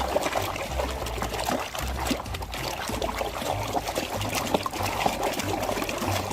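Water pouring and trickling as a muddy plastic toy vehicle is rinsed clean, with small splashes and clicks from handling.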